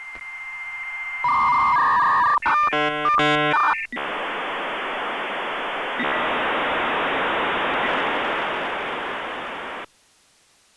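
Dial-up modem handshake sound effect: a steady high tone, then two shorter paired tones, a burst of warbling beeps, then about six seconds of loud hiss that steps up partway through and cuts off suddenly.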